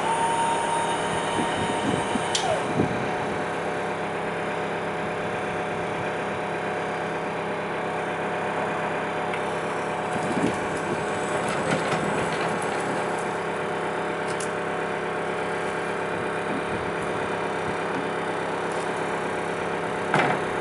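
Steady machine hum with several fixed tones throughout, with the drive motor of a Rocla electric ride-on pallet truck whining and changing pitch as it pulls off and manoeuvres, and a single knock near the end.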